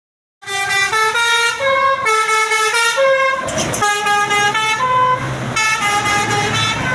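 Basuri telolet musical air horn on a bus, starting about half a second in and playing a quick melody of stepped horn notes. A low hum comes in under the horn in the last second or so.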